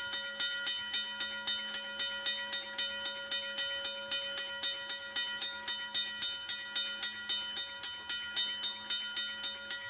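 Freight train running, with a steady rhythmic clatter about four times a second over a few steady tones.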